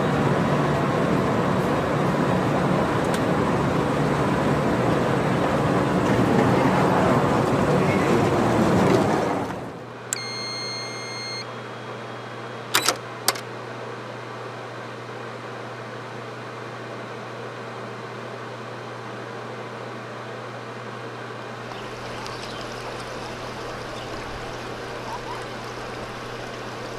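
Loud steady rushing noise of a moving vehicle, cut off sharply about ten seconds in. It gives way to a much quieter steady low hum, with a short electronic tone just after the change and two sharp clicks a moment later.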